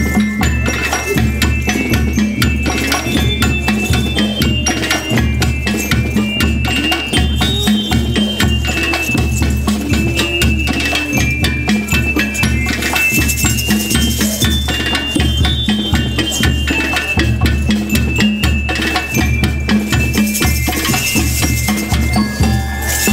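School rhythm band playing: a high, ringing bell melody, typical of bell lyres, over a steady drum beat from bass drums and a drum kit.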